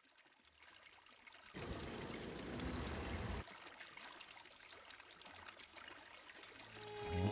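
Faint trickling, running water, louder for about two seconds from a second and a half in, then softer. Near the end, music with a steady low drone fades in.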